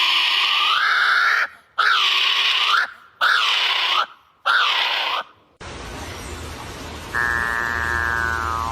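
Loud, harsh bird calls: four long, drawn-out cries with gaps between them, then a shorter nasal call with many close harmonics that falls slightly in pitch near the end.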